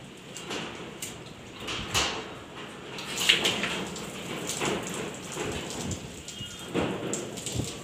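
Hands scrubbing wet, shampoo-lathered long hair: an irregular run of wet squelching and splashing sounds, the loudest about three seconds in.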